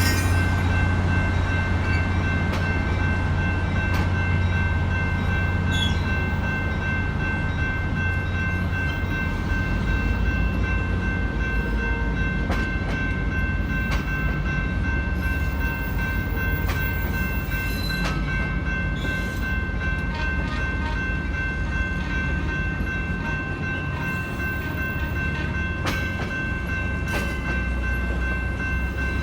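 Moving train led by an EMD GP9 diesel locomotive: a steady low engine drone, with a steady high whine over it and scattered light clicks from the running gear.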